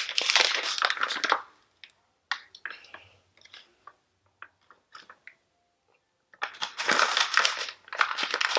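Plastic packaging crinkling and rustling as it is handled and pulled at to get the item out, in two long bouts with scattered small clicks and rustles in the lull between.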